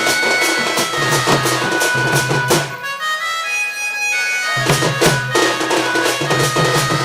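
Folk dance music: a shrill wind instrument holding a melody over a steady drum beat. The drums stop for about two seconds midway while the wind instrument plays on, then come back in.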